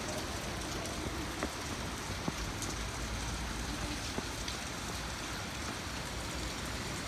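Heavy rain falling steadily on roofs and pavement, an even hiss with a few sharper drip ticks scattered through it.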